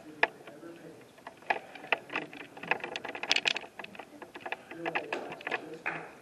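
Low murmured voices with scattered, irregular sharp clicks and taps.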